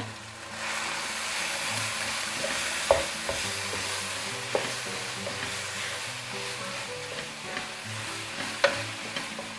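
Ground chicken filling sizzling as it fries in a pan while being stirred, with a few sharp knocks of the spoon against the pan.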